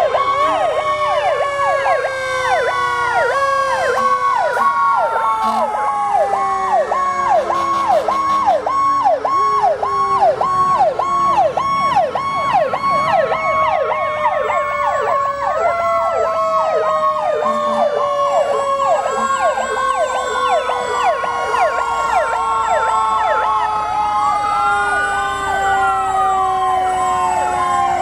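Several fire truck sirens sounding at once as a line of fire engines passes: a fast, evenly repeating yelp runs throughout, overlaid by long tones that fall slowly over several seconds, with slower rising and falling wails near the end.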